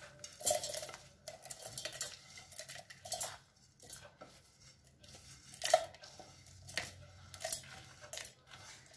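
Fried chutney ingredients being tipped and scraped out of a pan into a stainless-steel mixer-grinder jar: irregular metal-on-metal scrapes and clinks, with the food dropping into the jar.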